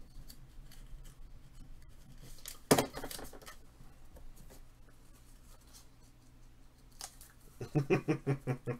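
Handling of a foil trading-card pack: a sharp crinkling rip of the wrapper about three seconds in, with faint shuffling of cards around it. Near the end a man laughs in a short run of quick ha-ha pulses.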